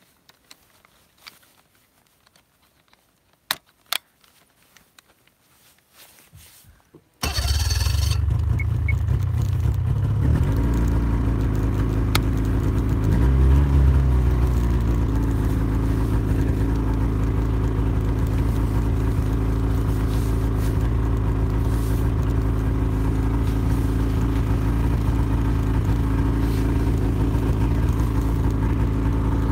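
A few handling clicks over near quiet, then about seven seconds in a snowmobile engine starts and settles into a steady run with a low, even hum.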